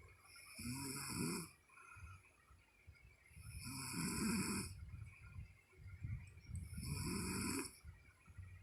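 A woman snoring in her sleep: three snores about three seconds apart, each a low buzzing breath lasting about a second, with quieter breathing between them.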